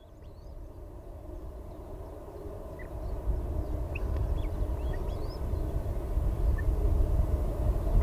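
A low rumble that grows steadily louder, with faint short rising chirps scattered over it.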